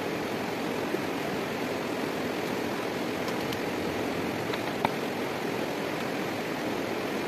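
Steady rushing of flowing water, like a nearby stream. A few faint clicks of rocks being set against other rocks in mud sound over it, the sharpest just under five seconds in.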